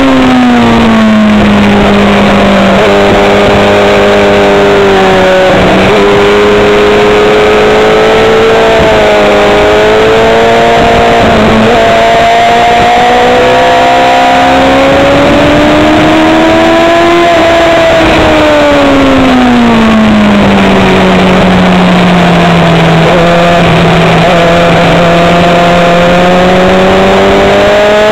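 Onboard sound of a Bimota YB4ei's inline-four engine, running hard. Its pitch climbs slowly, drops smoothly for a few seconds past the middle as the bike slows, then holds and rises again near the end.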